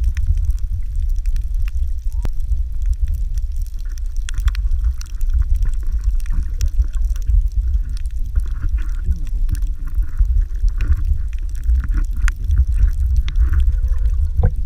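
Underwater sound picked up by a camera in its housing: a heavy steady low rumble of moving water, scattered sharp clicks and crackles throughout, and muffled bending tones through the middle part.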